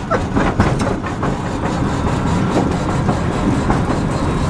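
Inside the cab of a lowered electric mini truck driving over rough ground: steady road and tyre noise with rapid rattling and knocking as the stiffly lowered suspension bounces.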